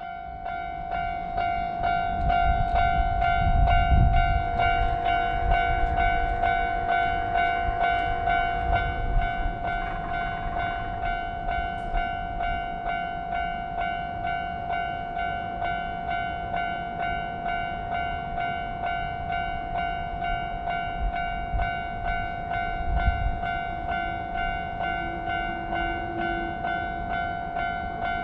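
Japanese level-crossing warning bell ringing its repeated 'kan-kan' alarm, a steady pitched tone pulsing at an even rhythm. A train rumbles through the crossing about two to nine seconds in, and again briefly around twenty-three seconds.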